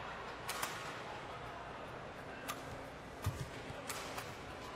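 Badminton rally: a shuttlecock struck back and forth with rackets, giving sharp, brief cracks a second or more apart, with a low thud of a player's foot landing in between.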